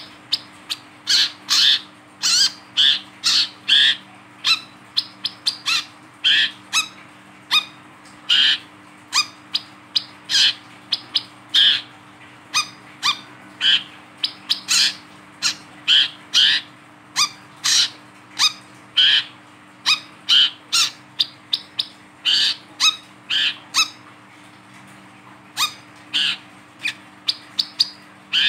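Brown-throated sunbird calling over and over: sharp, short chirps at about two a second, thinning out briefly a few seconds before the end. These are the bird's lively calls.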